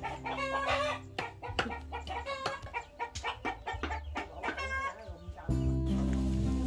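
Chickens clucking in a yard, with short bird calls scattered through the first few seconds, over background music that gets much louder near the end.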